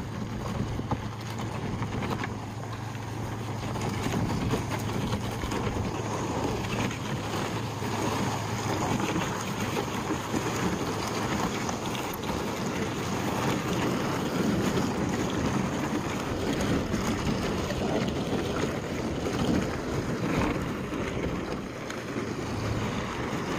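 Plastic pickup bed liner dragged over a gravel and dirt driveway, scraping and grinding steadily as the truck tows it slowly like a sled. A low engine hum from the towing pickup runs under it for about the first half.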